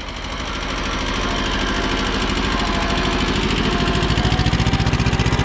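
Small Kubota compact tractor's diesel engine running steadily while it pulls a two-furrow plow with a packer through the soil. It gets louder, with a stronger, even chugging pulse, about three and a half seconds in.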